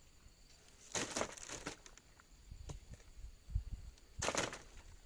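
Two bursts of rustling and crunching from oil palm vegetation being cut and handled, one about a second in and a shorter one past the four-second mark, with a dull low thump between them and a few small clicks.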